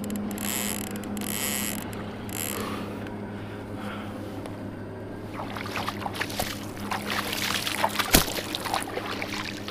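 Water splashing and slapping against the hull of a plastic fishing kayak while a big hooked shark pulls on the line. The splashing grows busier about halfway through, with one sharp knock a little before the end.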